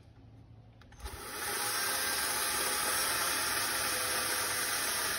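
Bad Boy battery-powered electric chainsaw starting up about a second in, then running steadily at full speed with a high, hissing motor-and-chain sound.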